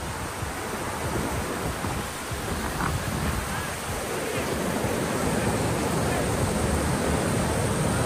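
Fast, swollen river rushing over rock shelves, a steady wash of water noise that grows a little louder about halfway through.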